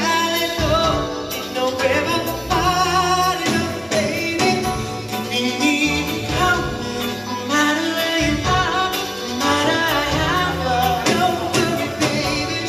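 Male pop vocal group singing in harmony over a live band with drums and bass.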